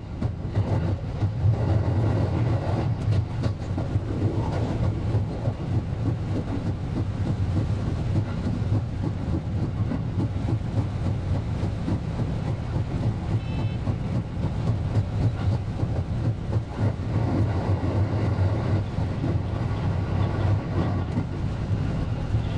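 JR West 223 series electric train running along the line: a steady low rumble with dense, rapid rail clatter.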